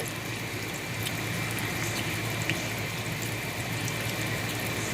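Green tomato slices frying in hot oil: a steady sizzle with scattered small pops as the water cooks out of them.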